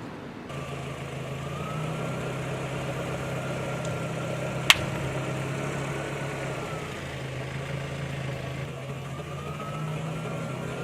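Car engine running slowly with a steady low hum and a faint whine that rises and falls gently, and a single sharp crack a little before halfway through.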